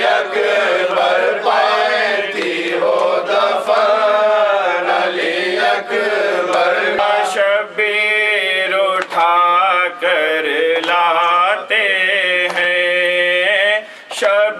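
Male voice chanting a nauha, a Shia lament in Urdu, in a sustained melodic recitation. About seven seconds in the chant breaks off briefly and a different male voice takes it up.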